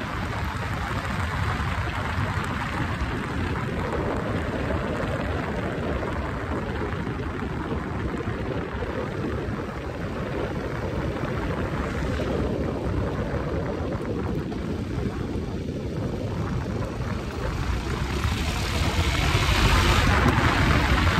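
Motorcycle running at road speed, its engine drone mixed with wind rushing over the microphone; the sound gets louder in the last few seconds.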